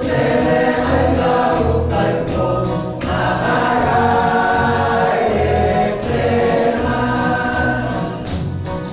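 A group of voices singing together in chorus, with a steady low beat pulsing under the singing.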